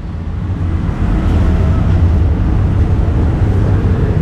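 Steady low rumble of street background noise, building over the first second and then holding level.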